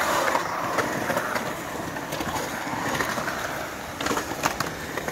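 Skateboard wheels rolling over a concrete skatepark surface, several boards at once, with a few sharp clacks.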